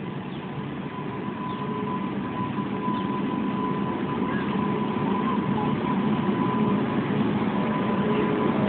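Electric locomotive of an Indian Railways train approaching and passing a level crossing: a steady rumble that grows gradually louder, with a thin steady high tone throughout.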